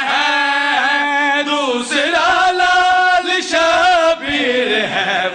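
A group of men chanting an Urdu devotional qasida together at a microphone, holding long, wavering notes that fall in pitch near the end.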